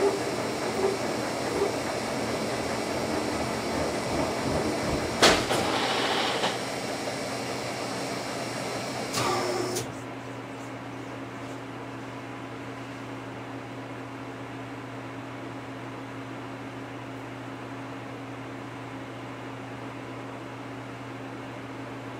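Lucas 41 horizontal boring mill running with a steady, low hum. For the first ten seconds a louder rushing noise with small ticks and one sharp click sits over the hum. The rushing noise then cuts off suddenly, leaving only the machine's hum.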